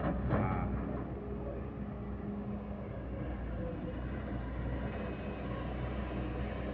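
Steady diesel engine drone of a SANY SY215C hydraulic excavator working as it loads coal into a six-wheel dump truck.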